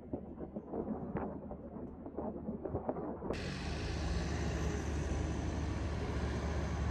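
Outdoor ambience with a steady low rumble. It is muffled at first, then about three seconds in it becomes fuller and steadier, with hiss above the rumble.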